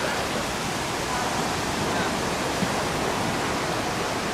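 Steady, even rushing of surf washing onto a sandy beach.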